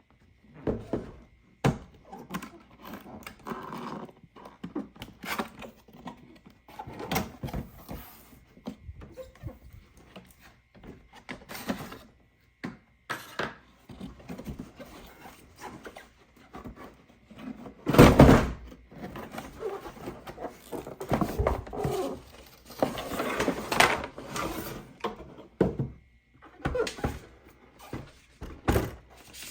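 Handling and unpacking a toy claw crane game: irregular knocks, taps and rustling of the box and packaging, with one louder thud about 18 seconds in.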